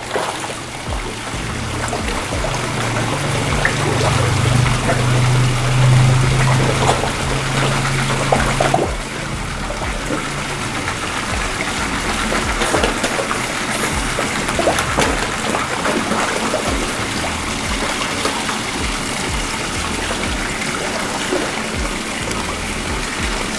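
Background music over the steady trickle of a small garden koi-pond waterfall.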